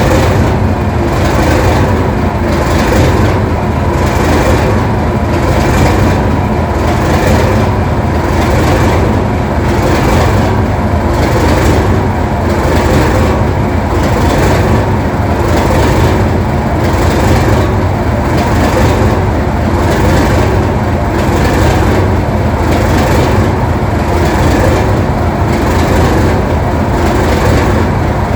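English Electric diesel locomotive engine running steadily, with a regular pulsing beat over a deep, continuous low rumble.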